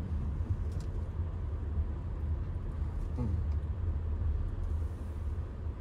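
Low, steady cabin rumble of a 2022 Audi Q5 with its 2.0-litre turbocharged four-cylinder, rolling slowly, heard from inside the cabin.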